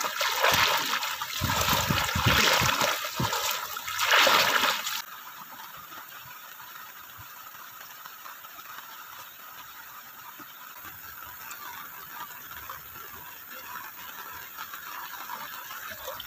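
Loud, surging splashes of legs wading through shallow sea water for about five seconds. Then an abrupt change to a steady hiss of heavy rain falling on the water.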